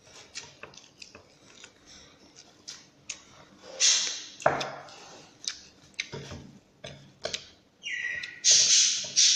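A person chewing and eating with her hands: irregular small mouth clicks and smacks, with a few louder noisy bursts around the middle and near the end.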